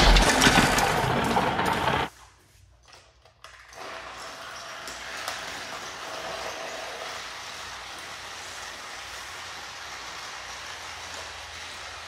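A loud sound cuts off abruptly about two seconds in. After a short near-silence, battery-powered toy trains run on plastic track with a steady mechanical running noise.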